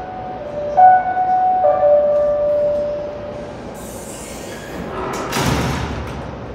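Two-tone electronic chime, a higher note followed by a lower one, sounded twice over the steady hum of an idling PATH PA5 train. A short rush of broad noise comes about five seconds in.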